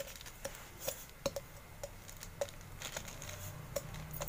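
Steel tumbler pressing and flattening sticky peanut chikki (roasted peanuts in jaggery syrup) on a greased plastic sheet: light, irregular taps and clicks of metal against the nut layer and plastic, about two a second.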